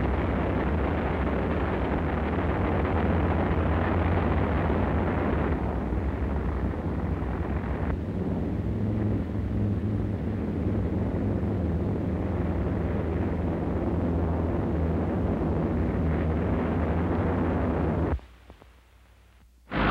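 Radial piston engines of Curtiss P-36 pursuit planes running, a dense, steady rumble with a low hum underneath. The sound cuts out about eighteen seconds in, leaving near silence.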